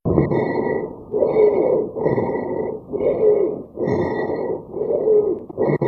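Recorded abnormal lung sounds: quick breaths, about one a second, each with a pitched, musical tone running through it, of the wheeze-like kind heard in narrowed airways.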